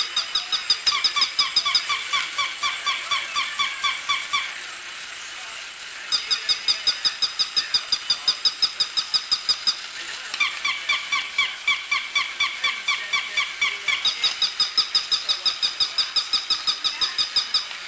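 Battery-operated plush toy dogs giving off rapid electronic chirping, about five chirps a second at a couple of fixed high pitches. It comes in runs of a few seconds, with a short break about four and a half seconds in.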